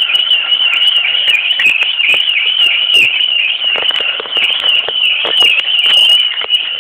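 Shopping cart squealing like a siren as it is pushed: a continuous high whine that wavers and dips about three times a second, with rattling clicks from the cart rolling.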